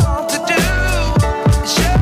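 Background music with a steady beat, deep bass hits and a sung melody.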